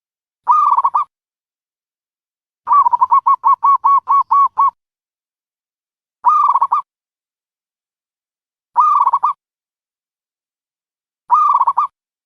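Dove cooing: short, pitched calls about every two and a half seconds, with one longer rapid run of about ten staccato notes near the start. There is dead silence between the calls.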